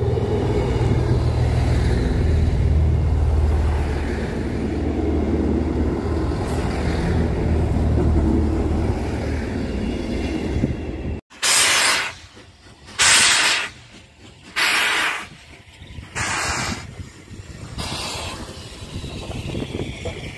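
A train's steady low rumble for about eleven seconds, cut off abruptly. Then come five loud hissing chuffs from a steam locomotive, about one every second and a half.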